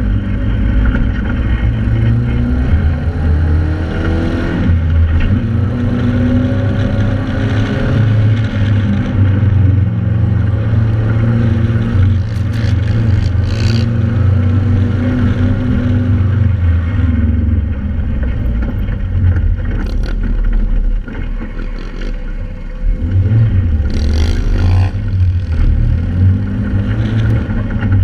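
Joyner 1100 Sand Viper sand rail's 1.1-litre three-cylinder engine running under load on the dunes, heard close from onboard, its revs rising and falling with the throttle. The engine drops back briefly about three quarters of the way through, then picks up again.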